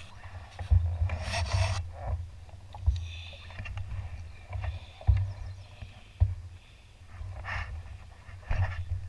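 Rubbing and scraping with several dull knocks, over a steady low rumble.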